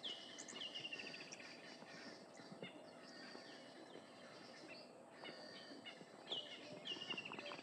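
Faint savanna ambience of wild bird calls. A rapid run of notes falling in pitch comes twice, at the start and again about six seconds in, over scattered high chirps.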